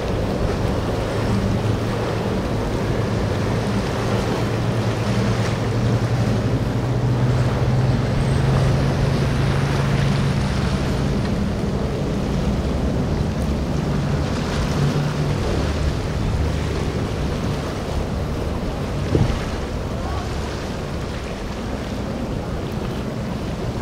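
Powerboat engines droning as a boat runs through the inlet, with the hull's spray and the chop washing around it and wind buffeting the microphone. The engine note shifts pitch about halfway through and then fades, leaving mostly water and wind; there is one brief click near the end.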